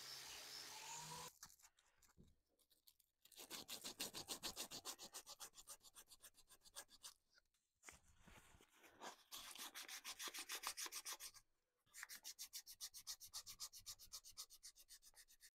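Hand sanding of a knife's wooden handle clamped in a vise: quick back-and-forth sandpaper strokes, about five a second, in three spells. For about the first second an angle grinder with a sanding disc runs on the handle, then cuts off.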